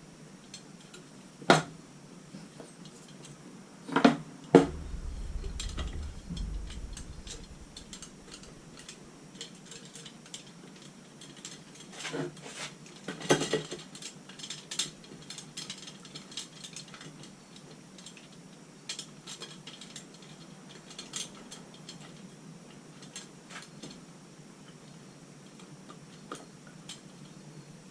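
Steel spokes and nipples clinking and rattling against the hub and rim as a Velocette Venom's spoked wheel is laced by hand. Sharp metal knocks come about a second and a half in and twice around four seconds, followed by a brief low rumble, then a cluster of clinks about halfway through and light ticks in between.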